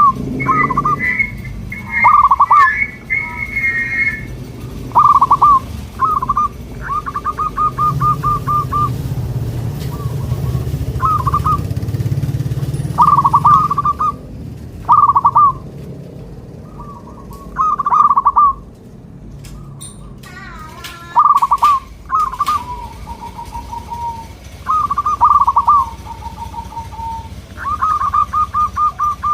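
Zebra doves (local perkutut) cooing: short rippling coo phrases repeat every two or three seconds, one drawn out into a run of quick even pulses, and some later phrases are a little lower in pitch, as if another dove is answering.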